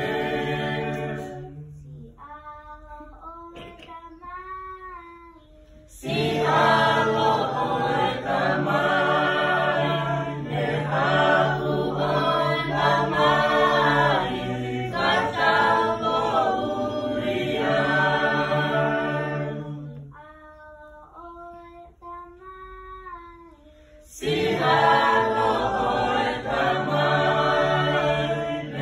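A cappella choir singing a hymn in parts, with a steady bass line under the full sound. Twice the sound drops to one or two quiet sung lines for a few seconds, once near the start and again about twenty seconds in, before the full choir comes back in.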